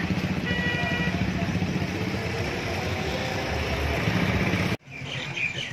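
Steady outdoor road-traffic noise with a motor running, a low rumble throughout. It cuts off suddenly near the end.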